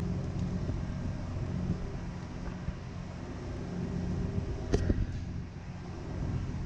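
Steady low hum of running ship's machinery in the engine control room, with a single sharp click about five seconds in as the console telephone handset is handled.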